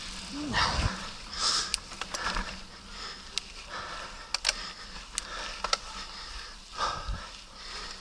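Mountain bike riding over a rough dirt track: the rider's breathing comes in short bursts, and the bike gives sharp clicks and rattles.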